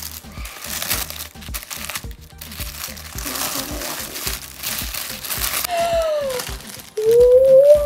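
Tissue paper crinkling and rustling as it is pulled open by hand, over background music with a steady beat. Near the end a child's voice lets out a long, sliding exclamation of surprise.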